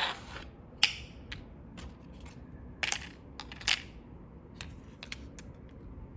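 Handling noises from the unboxing: a series of sharp clicks and rustles, the loudest right at the start and about one, three and nearly four seconds in, then a few lighter ticks.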